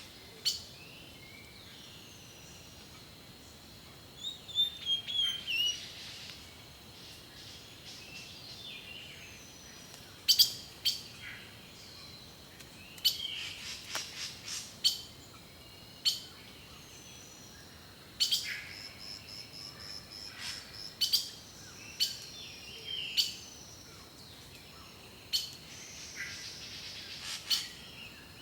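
Several songbirds chirping and singing: short, sharp high notes and quick whistled sweeps come in scattered clusters, with a rapid high trill a little past the middle.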